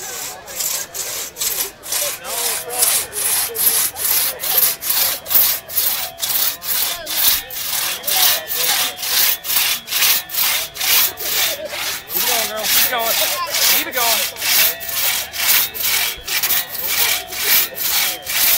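Two-person crosscut saw rasping through a squared timber, pulled back and forth in quick, even strokes at about two a second.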